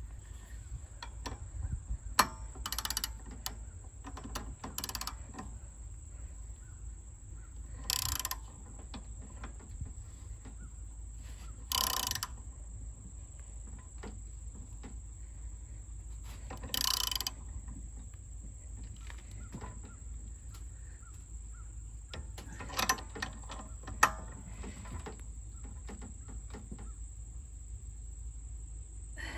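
Hand ratchet clicking in short runs as it tightens the crankshaft bolt of a Predator 212 engine, with the piston held against compression by rope packed into the spark plug hole.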